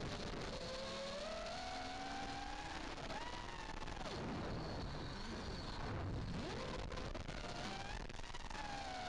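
Five-inch FPV freestyle quadcopter's brushless motors and Dalprop Fold 5.1 folding props whining, the pitch rising and falling with the throttle. The whine drops sharply twice near the middle as power is cut, then climbs back as the quad punches out.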